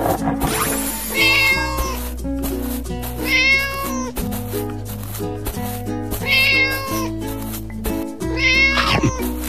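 Cat meow sound effect, four separate meows about two and a half seconds apart, over steady background music.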